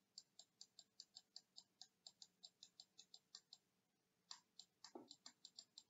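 Faint, rapid clicking at about four or five clicks a second. It stops for under a second about three and a half seconds in, then resumes. These are the clicks of a drawing tool as a dashed line is marked out on screen.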